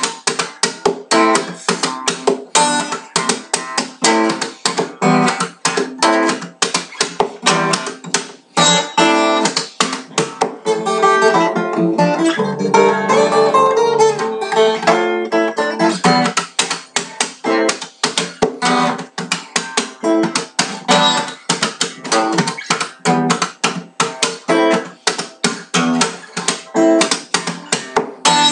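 Acoustic guitar fingerpicked in a fast, intricate math-rock style, notes plucked in quick succession, with a stretch of ringing, sustained chords around the middle.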